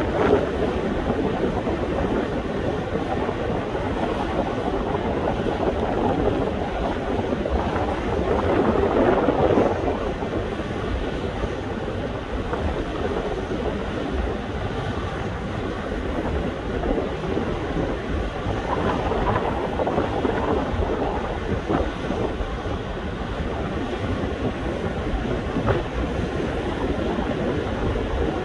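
Steady rumbling noise of a ship's deck crane's machinery at work holding a suspended load, mixed with wind. It swells briefly about a third of the way in and again about two-thirds in.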